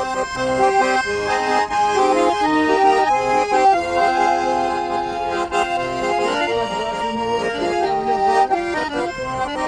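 Russian garmon (button accordion) playing an instrumental interlude between sung verses: a waltz-like melody over sustained chords, with bass notes underneath.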